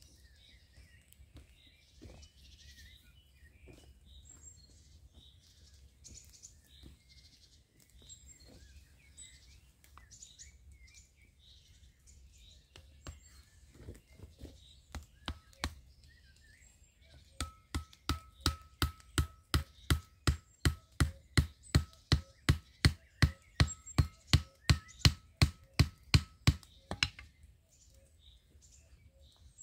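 A hatchet's poll hammering a stake into the ground for a tarp guyline: a few scattered knocks, then a steady run of sharp knocks, about three a second for some ten seconds, with a faint ringing tone under them. Birds chirp in the background before the hammering.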